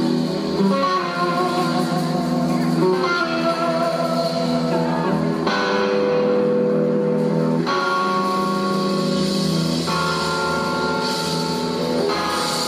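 Live blues-rock band playing, led by an electric guitar on a red SG-style solid-body, with long held notes that change every second or two over the band.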